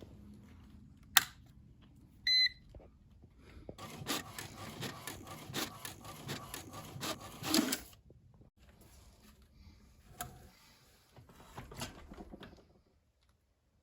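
A click, then a short electronic beep about two seconds in, followed by about four seconds of rattling, clattering mechanical noise of a desktop printer feeding and printing a sheet of transfer paper. A few faint clicks follow near the end.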